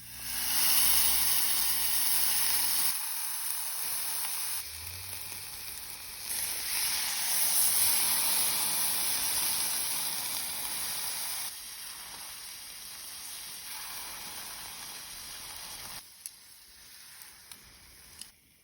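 Beef steak sizzling over charcoal on a small grill, a steady hiss that jumps up and down in loudness several times and fades lower near the end, with a couple of sharp ticks in the last few seconds.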